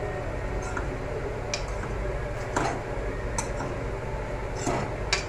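Metal spoon scraping and tapping inside a steel kadhai, about six sharp, irregular clicks and knocks, over a steady low hum.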